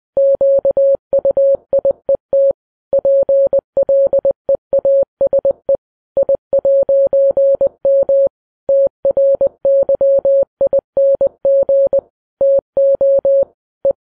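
An electronic beep tone keyed on and off in an irregular run of short and long beeps, like Morse code being sent.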